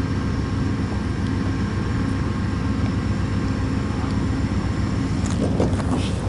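Diesel locomotive idling with a steady low rumble and hum. A few short knocks come near the end.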